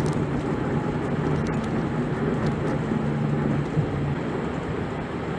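Camper van's engine drone and road noise heard from inside the cab while climbing a steep mountain grade; the steady engine hum eases off about two-thirds of the way in.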